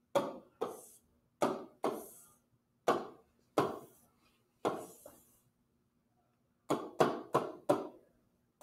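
Computer mouse buttons clicking as on-screen tiles are picked up and dropped: sharp clicks, often in pairs, with a pause just after the middle and a quick run of clicks near the end.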